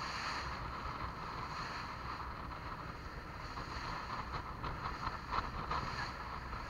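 Motorboat under way: a steady rush of engine and water noise, with wind on the microphone. A few short ticks come in the second half.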